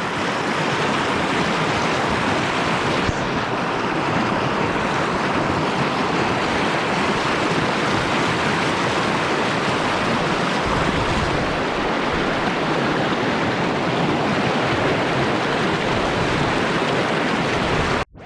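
Mountain river water rushing steadily over stones, a loud even roar that cuts off suddenly near the end.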